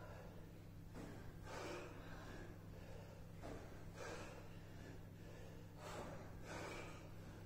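A person breathing hard from exertion, with heavy breaths in and out coming in pairs about every two seconds, over a steady low hum.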